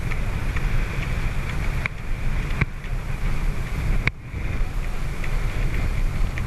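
Wind buffeting the camera microphone aboard a catamaran under way, with a steady low rumble and water noise from the moving boat, and a few short clicks.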